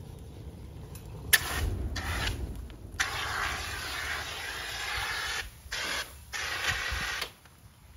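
Handheld H3R HalGuard clean-agent fire extinguisher discharging into a wood fire in bursts: a sharp click about a second in and a brief hiss, then a long loud hissing spray from about three seconds, broken twice, cutting off near the end.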